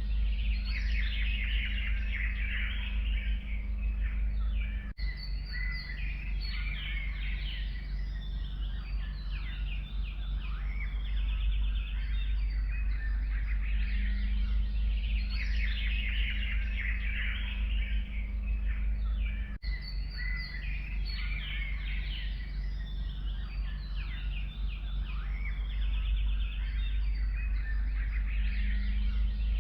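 A chorus of many small songbirds chirping and trilling over one another, with a steady low rumble underneath. The sound drops out for an instant twice, about five seconds in and again near the twenty-second mark.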